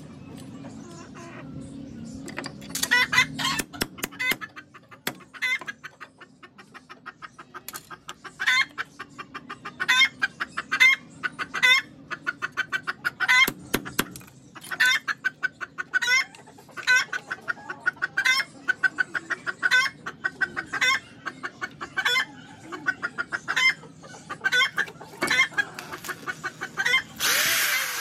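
Hens clucking and cackling over and over, in short calls about once a second, with a few sharp hammer knocks on bamboo. A loud burst of power-drill noise starts near the end.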